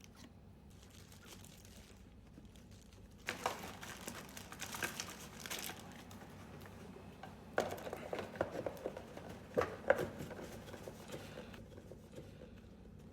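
Plastic kit packaging crinkling and rustling as it is handled, in two stretches of a few seconds each with sharp crackles.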